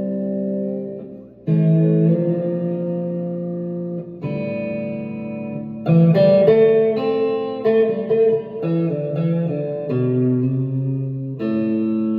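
Strat-style electric guitar with Kinman and Supro Roadhouse pickups, playing chords that ring out and change every one to three seconds, with a run of quicker picked notes in the middle.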